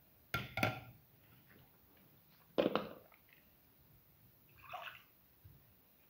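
Spatula working through thick, wet chickpea-flour batter in a bowl: wet, sloshing strokes in three short bursts, about half a second in, near three seconds and near five seconds.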